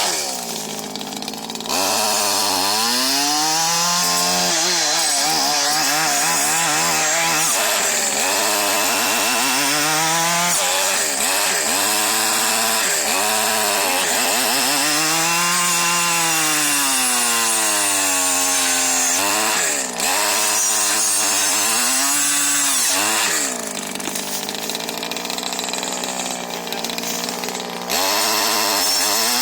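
Stihl FS 74 two-stroke brushcutter engine revving up and down again and again as its chisel-tooth circular saw blade cuts through brush and small pine trees. It drops to a lower, quieter running in the first two seconds and again for a few seconds near the end.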